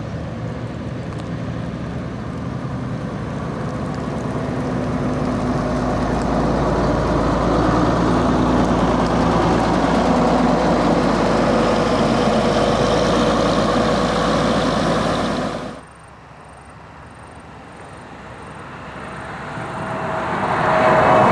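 A diesel bus engine running and growing louder as the bus pulls away and turns close past, steady at its loudest until a sudden cut about 16 seconds in. A Mercedes-Benz OC1621 bus then approaches along a highway, its engine and tyres growing louder toward the end.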